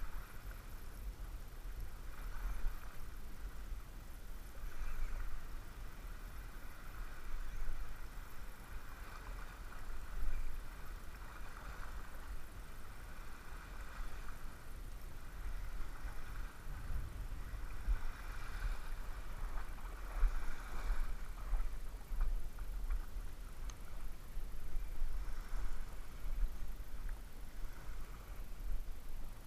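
Wind buffeting the microphone as an uneven low rumble, over a steady outdoor wash that swells and fades every few seconds.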